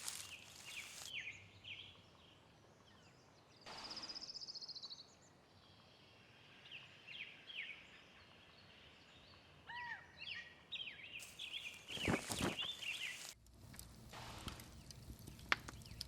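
Several wild birds singing and calling over faint outdoor ambience: scattered short chirps, a high rapid trill about four seconds in, and a louder brief sound about twelve seconds in.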